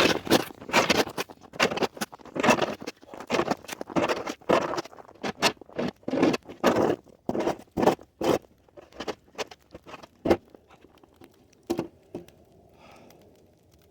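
Quick, irregular crunches and scrapes, about two or three a second. They are louder at first, then thin out and stop near the end.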